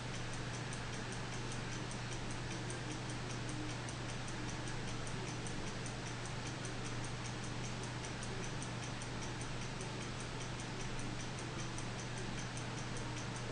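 Mechanical stopwatch ticking rapidly and evenly, with a steady low hum underneath.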